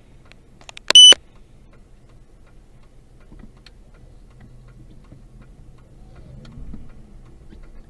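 Faint steady ticking, typical of a car's turn-signal indicator, over a low engine hum heard from inside the cabin. About a second in, one loud, short, high-pitched electronic beep.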